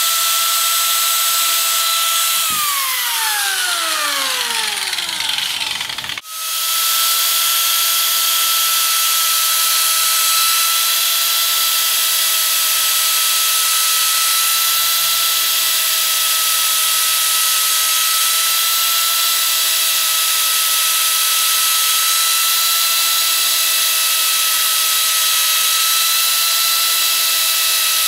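Arbortech Mini Pro power carver's motor running with a steady high whine. About two and a half seconds in it is switched off and the pitch falls as it spins down. From about six seconds in it is running at full speed again, carving grooves into a wooden board.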